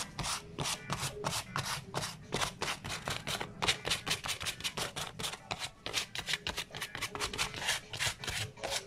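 Light hand-sanding with sandpaper over a painted, patinated candlestick, in quick back-and-forth scraping strokes, several a second. The sanding is distressing the top coat to bring out the white beneath.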